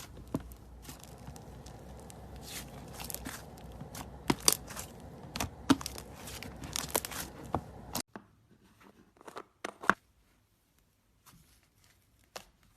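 Slime being squeezed and stretched close to the microphone, with dense crackling and sharp snapping pops. The sound cuts off abruptly about two-thirds of the way in, followed by a few quieter pops, then it goes nearly quiet.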